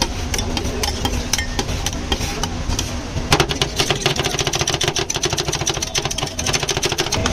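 Metal spatulas chopping and scraping rolled-ice-cream mix on a cold steel plate: a fast run of sharp metal clacks that gets denser about three seconds in, over a steady low hum.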